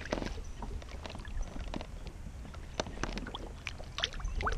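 Lake water splashing and dripping at the side of a kayak as a bass is released by hand and kicks away, with a scatter of small splashes and drips that are busiest near the end, over a low steady rumble.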